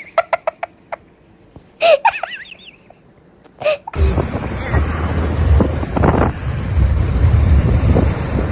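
A quick run of short laugh-like bursts, then two louder wavering cries; about four seconds in, steady wind buffeting the microphone over a low rumble takes over.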